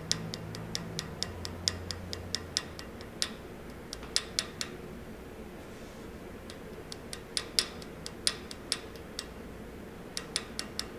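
Light, quick taps of a small jeweller's hammer on the end of a metal wire rivet held on a nail in a vise, spreading the wire into a mushroom-shaped rivet head. The taps come in short runs of a few, with a pause of about two seconds near the middle.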